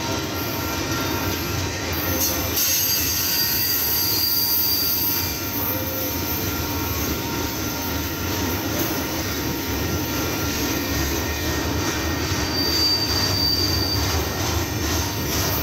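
Double-stack intermodal train's well cars rolling past, a steady rumble of steel wheels on rail. A high, thin squeal from the wheels comes in twice, about two and a half seconds in for a few seconds and again near the end.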